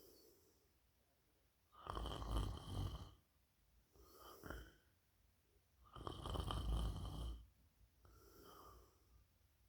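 A sleeping person snoring: two loud snores about four seconds apart, each followed by a softer, shorter breath.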